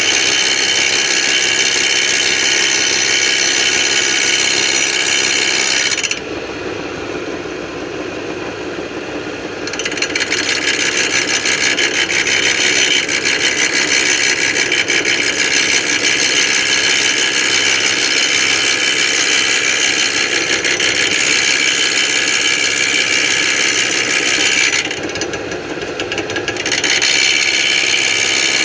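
Homemade lathe running with a four-jaw chuck, a steady mechanical whir with a strong hiss. It falls quieter and duller twice: for about three and a half seconds starting around six seconds in, and for about two seconds near the end.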